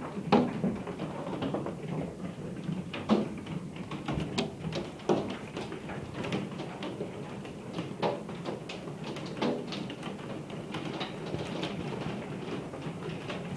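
Hail falling: hailstones striking a hard surface in irregular sharp clicks and knocks over a steady patter.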